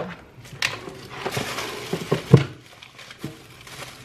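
Shopping being handled: a cardboard pie box set down and a shopping bag rummaged through, a stretch of rustling with a dull thump about two and a half seconds in and a lighter knock a little later.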